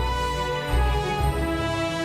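Instrumental Christmas music: sustained chords over a moving bass line.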